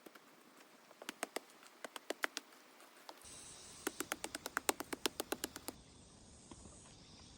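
A series of sharp clicks in two runs. A loose handful comes first, then after a brief pause a faster run of about a dozen, roughly eight a second.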